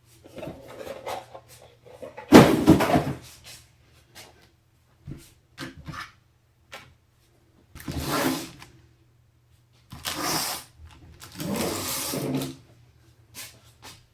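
Hands handling computer parts during a PC build: a string of short rustling scrapes and light knocks, the loudest about two seconds in, over a faint low hum.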